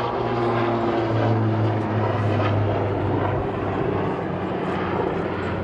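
Super Puma transport helicopter flying a display pass overhead: its rotor and twin turboshaft engines make a steady low drone.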